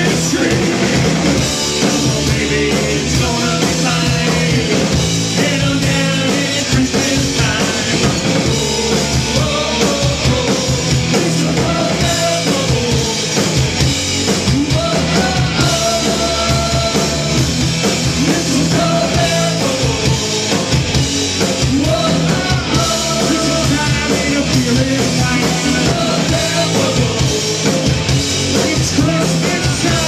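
Live punk rock band playing loud and steady: electric guitars, electric bass and a drum kit, with men singing.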